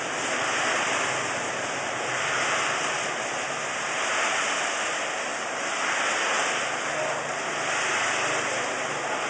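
Light, dry fried snack pellets tumbling and cascading in a rotating stainless steel drum and pouring out of its mouth: a steady rain-like rushing that swells and fades about every two seconds, over a faint low machine hum.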